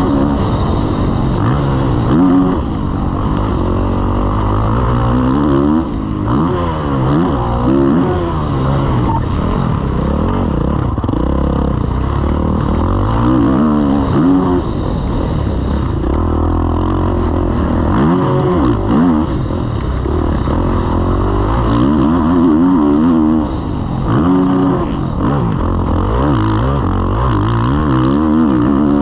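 Kawasaki KX450 motocross bike's four-stroke single-cylinder engine being ridden hard, its pitch climbing and dropping again and again as the throttle is opened and closed through the laps.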